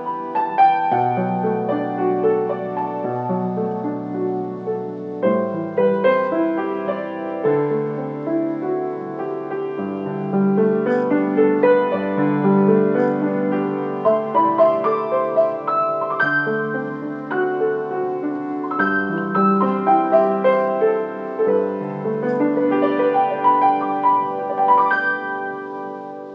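Background piano music, a melody over held chords, fading down near the end.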